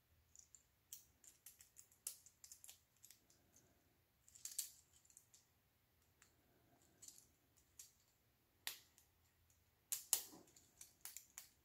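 Faint, scattered clicks and taps of plastic Lego pieces being handled and pressed together, with a few louder clicks near the middle and toward the end.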